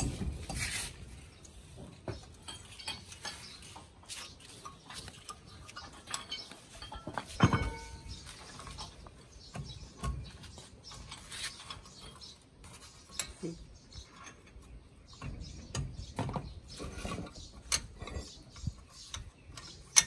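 Intermittent metal clinks and taps of a hand tool working on the front wheel hub and steering knuckle of a 4x4 pickup's front axle. One louder ringing clank comes about seven and a half seconds in.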